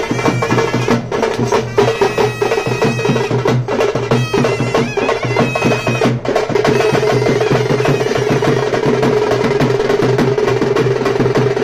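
Veeragase folk-dance accompaniment: fast, dense drumming with a sustained reed pipe playing over it. About six seconds in the drumming turns into a steadier, more even roll.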